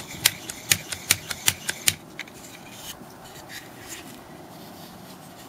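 Small hand-cranked wooden automaton clicking as its mechanism is worked: about a dozen sharp clicks in quick, uneven succession over the first two seconds, then a few fainter ones.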